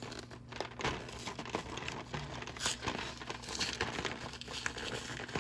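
Toy packaging being handled and opened, with irregular crinkling and crackling and some tearing.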